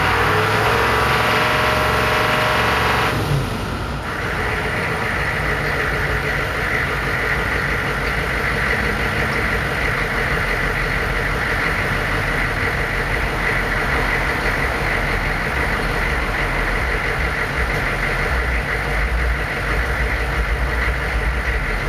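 A 1999 Chevy Suburban's 6.5 turbo diesel V8 running at the tailpipe. It is held at raised revs for about the first three seconds, then drops back to a steady idle.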